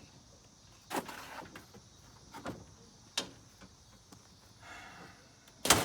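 Unboxed yard signs and their box being handled and searched through: a few sharp knocks and a soft rustle, with the loudest thump near the end.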